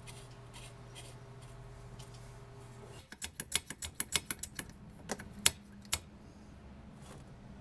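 A faint steady hum, then about a second in from the halfway point a quick irregular run of sharp clicks and taps as the parts of an old Clayton & Lambert brass blowtorch are handled, ending near the last second.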